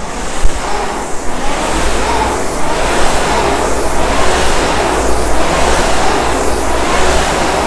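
Concept2 RowErg's air-resistance flywheel spinning up from a standing start: a loud rushing whoosh that builds over the first seconds and swells with each short, fast stroke, about one stroke every 1.3 seconds.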